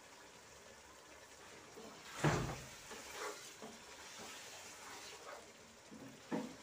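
Chicken pieces in thick masala being stirred in a large metal pot on a gas stove. A sharp knock about two seconds in, then a few softer clatters as the pot and spoon are handled.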